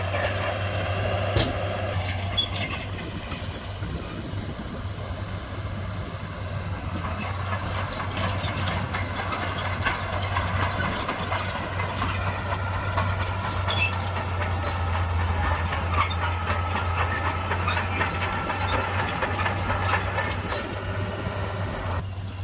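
Heavy diesel earthmoving machinery running steadily under load, a constant low engine drone with scattered metallic clanks and rattles over it.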